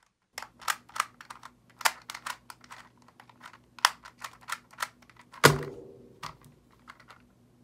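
ShengShou magnetic clock puzzle being solved: a fast, irregular run of sharp clicks as its pins are pushed and dials turned. About five and a half seconds in, a single loud thump as the clock is put down on the Stackmat and the hands come down on the timer to stop it.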